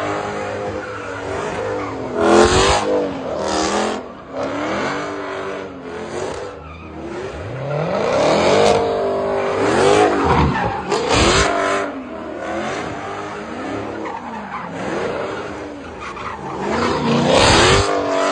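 Muscle car spinning donuts, its engine revving up and falling back again and again while the rear tyres spin and squeal, with louder surges about two seconds in, near the middle and near the end.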